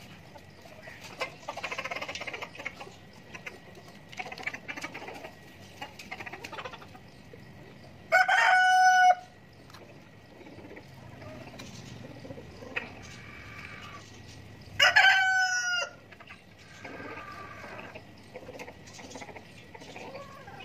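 A flock of chickens clucking softly, with a rooster crowing loudly twice, each crow about a second long, about eight seconds in and again about fifteen seconds in.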